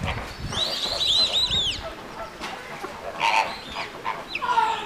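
A flock of flamingos calling with goose-like honks, a quick run of short arching calls about a second in and more calls later.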